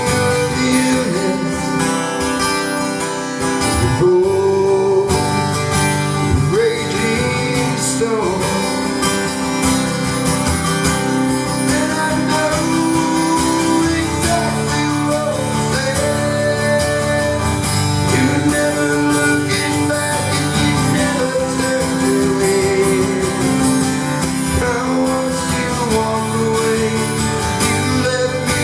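Country song played on acoustic guitar, with a lead melody over it that bends and glides in pitch.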